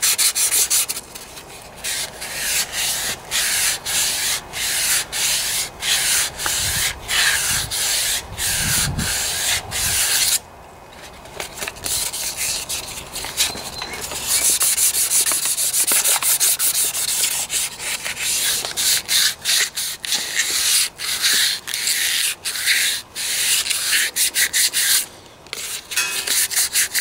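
400-grit sandpaper worked by hand around a steel engine crankshaft, a rapid run of rasping strokes about two to three a second, with brief pauses about ten seconds in and near the end. It is smoothing a line out of the shaft where the oil seal sits.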